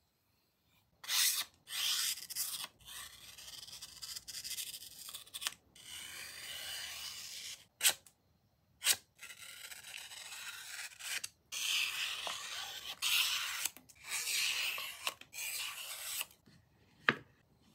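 A freshly stropped kitchen knife slicing through sheets of paper, testing the edge's sharpness. It comes as a series of dry, hissing slices, some short and some drawn out over a couple of seconds, with a few sharp ticks between them and a knock near the end.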